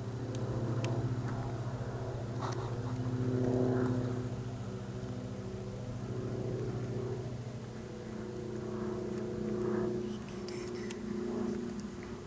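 A steady low engine drone with an even hum, swelling a little about four seconds in and again near the end, with a few faint clicks over it.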